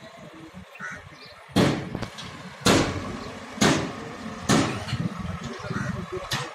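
A backhoe loader loading earth and stones into a steel tractor trolley: four sharp bangs about a second apart, with lighter knocks after, over a low diesel engine rumble.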